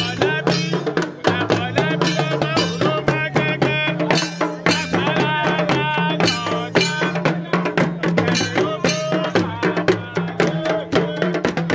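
Music: a voice singing over fast, dense percussion.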